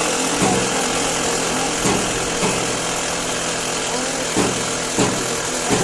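An engine idling steadily, with sharp, irregular knocks over it every half second to two seconds.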